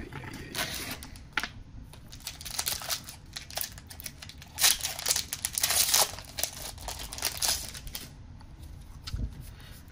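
A booster pack wrapper being torn open and crinkled by hand: an uneven run of crackling rustles that is loudest about halfway through.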